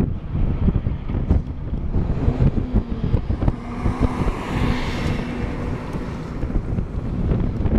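Vehicle and road rumble with wind buffeting the microphone, uneven and gusty. A louder rush of noise swells and fades about four to five seconds in.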